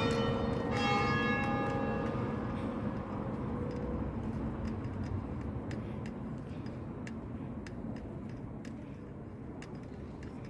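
Church bell of the cathedral ringing: a last stroke about a second in, its ring dying away over the next few seconds.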